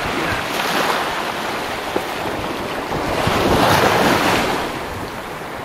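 Shallow ocean surf washing around the waders, with a wave swell that rises to its loudest about three and a half seconds in and then eases off; wind on the microphone.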